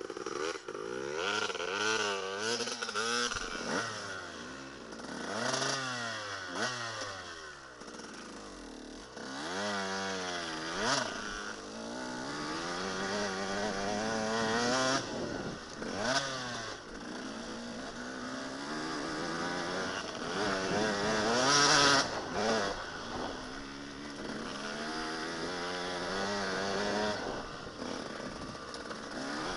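KTM dirt bike engine being ridden hard on a rough trail, its note climbing and dropping again and again with the throttle. A few sharp knocks break in, the loudest about 22 seconds in.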